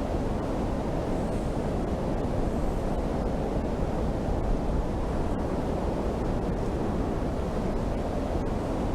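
Glacier ice calving into the sea and churning the water: a steady, deep rumbling noise with no distinct breaks, like heavy surf.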